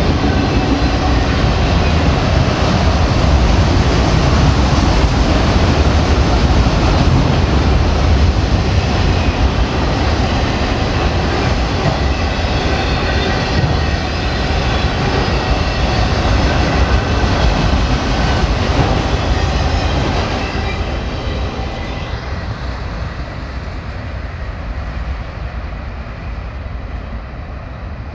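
CSX freight train of enclosed autorack cars rolling past at a grade crossing, a steady heavy rumble and wheel clatter. It fades away from about 20 seconds in as the end of the train goes by.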